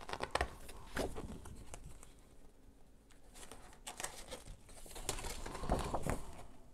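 A large fold-out paper instruction sheet being unfolded and turned over by hand, rustling and crinkling in short bursts with small crackles.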